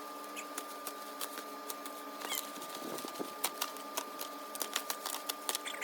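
Scattered small clicks and crinkles, irregular and faint, of packaging being handled and cut open, over a steady electrical hum.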